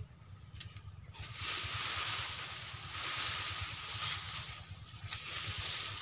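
Leafy branches and grass rustling and swishing as they are gathered and dragged by hand. The rustling starts about a second in and comes in waves.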